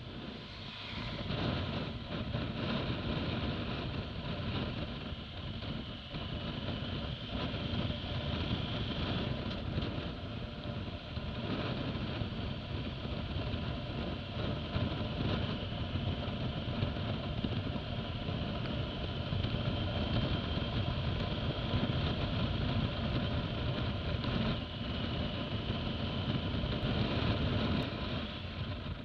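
Motorcycle engine running under way at low road speed, with wind and road noise, getting louder about a second and a half in as the bike picks up speed.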